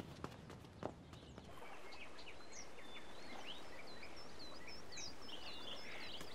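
A few footsteps in the first second and a half. Then a steady outdoor ambience of small birds chirping, many short rising and falling calls.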